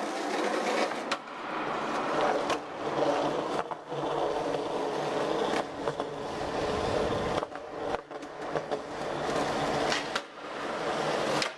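Skateboard wheels rolling on smooth concrete, broken by several sharp clacks as the board is popped, flipped and landed.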